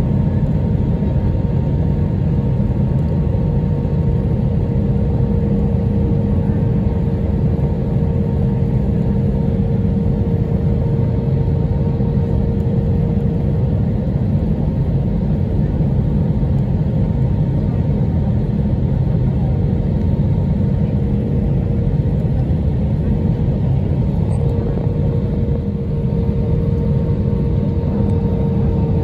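Cabin noise of a Boeing 737-800 on approach, heard from a seat over the wing: the steady roar of its CFM56-7B turbofan engines and rushing air, with a held engine hum of a few steady tones.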